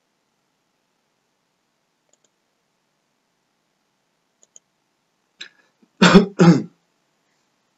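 A couple of faint computer-mouse clicks, then, about six seconds in, a person coughing twice in quick succession, loudly.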